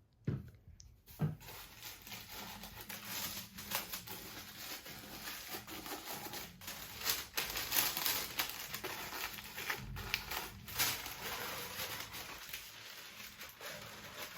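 Packaging being crinkled and torn open by hand: a continuous run of crackles and rustles with sharper rips here and there.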